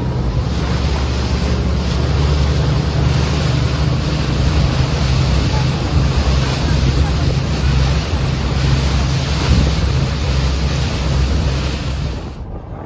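Boat engine running with a steady low hum, mixed with heavy wind noise on the microphone and water rushing along the hull. Near the end the wind and hiss drop away suddenly.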